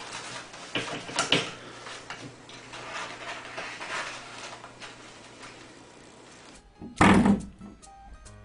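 Faint rattles and taps of a toilet-paper roll and holder being batted by a cat, then, about seven seconds in, one loud twang of a coiled-spring doorstop being flicked and ringing briefly.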